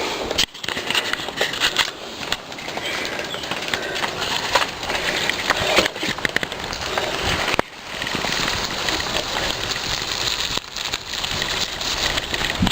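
Wind rushing and crackling over the microphone of a camera riding along on a moving bicycle, with a few short dropouts.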